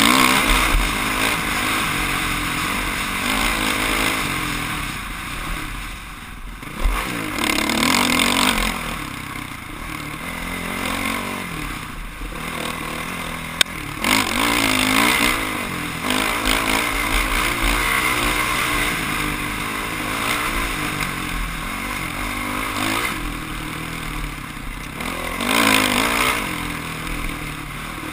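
Dirt bike engine revving up and falling back again and again as the bike is ridden over rough ground, with clatter and scraping. One sharp click about halfway through.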